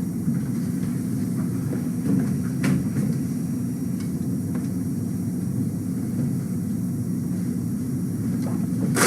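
Steady low rumble of a running vehicle, even and unbroken.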